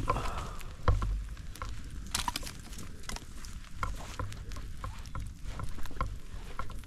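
A campfire crackling in light rain: irregular pops and taps throughout, with a dull thump about a second in.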